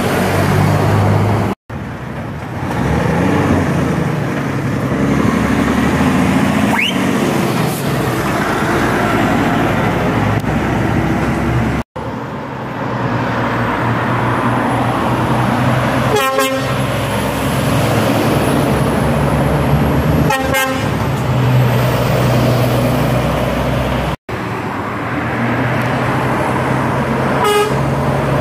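Articulated lorries driving past close by, their diesel engines and tyres rumbling steadily, with a short truck horn toot three times in the second half. The sound breaks off abruptly three times.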